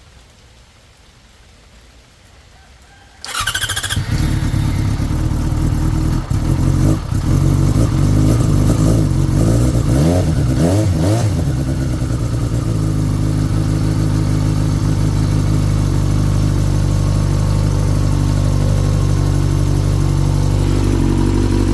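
2006 Yamaha FZ6's inline-four engine starting on the electric starter about three seconds in, firing up at once on a freshly fitted lithium battery. It is revved several times, then settles to a steady idle.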